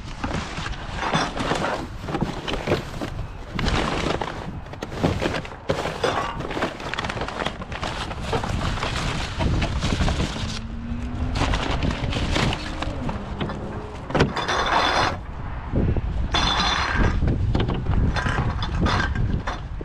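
Rubbish being rummaged through by hand in a plastic wheelie bin: plastic drink bottles, cardboard packaging and bags clattering, knocking and crinkling in an irregular run of clinks and thuds, with two louder bouts of crinkling near the end.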